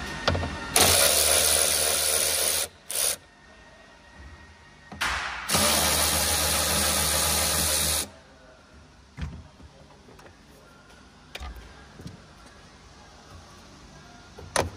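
Cordless ratchet with a Torx bit spinning out the bolts of a plastic trim cover: two runs of about two and three seconds with a short burst between, then a few light knocks and handling.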